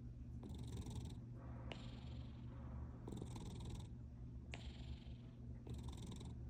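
Domestic cat purring steadily, the purr changing with each breath in and out, roughly every second and a half.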